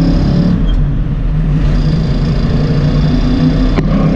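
1966 Ford Mustang's V8 engine running with a steady drone, with a single sharp click near the end.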